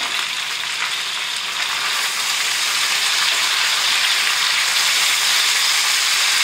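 Bacon and potatoes sizzling in a hot cast-iron frying pan while being turned with a slotted spatula. The sizzle grows louder about two seconds in.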